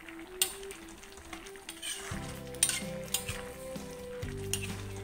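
Steel spoon stirring moong dal frying in oil in a steel kadai, with a few sharp clinks of spoon on pan over a light sizzle. A slow background melody plays alongside and grows fuller about two seconds in.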